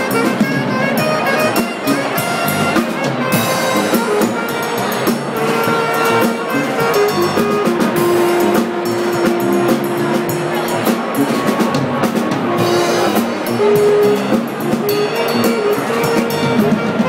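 Live jazz-funk combo playing: drum kit with cymbals, electric bass guitar and saxophone carrying held melody notes.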